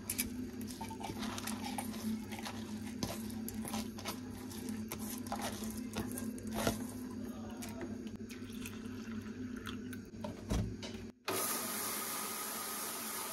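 Wet soaked rice scraped and tipped from a steel bowl into a stainless-steel mixer-grinder jar: soft squishy scrapes and small clicks of grains and metal over a steady low hum. About eleven seconds in, the mixer grinder starts and runs steadily with a high whir as the rice is ground.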